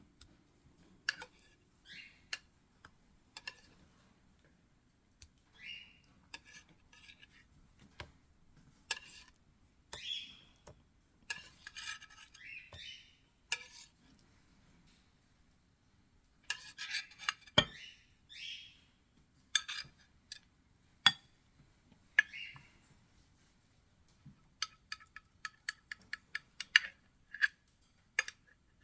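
A spoon clinking and scraping against a glass dish as a trifle layer is spooned in and spread, in irregular knocks and scrapes, with a quick run of light taps near the end.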